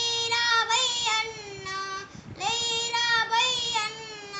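A young boy singing unaccompanied, holding long, wavering notes, with a short pause for breath about two seconds in.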